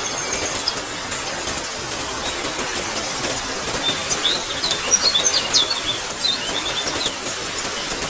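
Steady rain falling, with birds chirping over it; a quick run of chirps comes from about four to seven seconds in.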